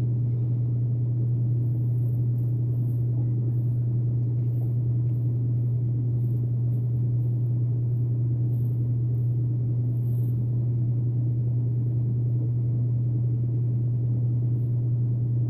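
A steady low hum, with faint short scrapes of a vintage Gillette safety razor with a Feather blade cutting through lathered stubble.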